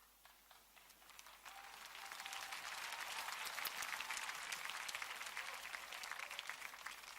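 Congregation applauding: it starts about a second in, swells, then tapers off near the end.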